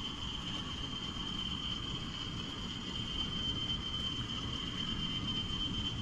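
Insects chirring steadily in a high, even tone, over a continuous low rumble.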